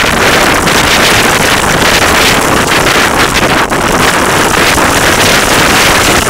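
Strong wind buffeting the microphone, a loud, steady rushing noise.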